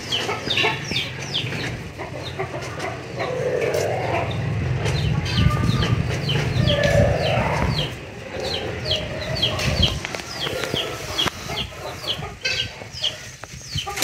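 Backyard poultry calling: a steady run of short, high, falling chirps, about three or four a second, with lower clucking calls around four and seven seconds in. A low rumble sits underneath and is loudest in the middle.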